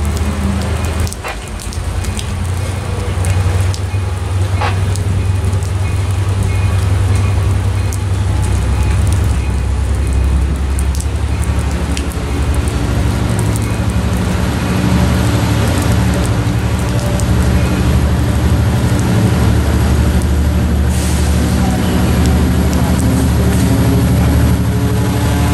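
Diesel locomotive engine of an approaching Metrolink train, a low steady rumble that grows louder over the first few seconds and then holds.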